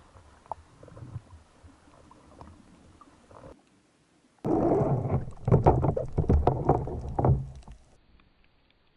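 Water heard at and under the surface: faint lapping at first, then after a brief pause about halfway through, louder underwater churning and bubbling with many small clicks and a low rumble, dying away near the end.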